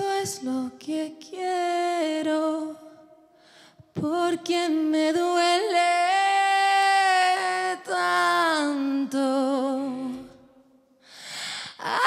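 A woman singing live into a handheld microphone, almost alone, in phrases of long held notes that slide between pitches, one with a wavering vibrato about two-thirds of the way through, with short pauses for breath.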